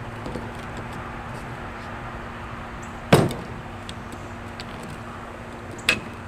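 Two sharp metal clicks, a loud one about three seconds in and a smaller one near the end, as a tool is worked against the steel action of a Martini-Henry Mk II rifle.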